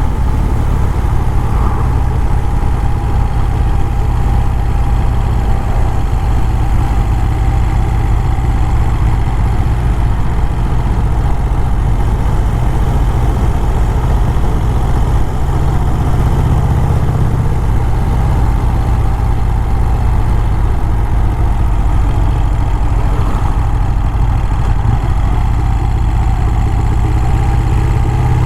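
1951 Vincent Rapide's V-twin engine running at a steady cruising speed while the bike is ridden, with a heavy, steady low rumble throughout.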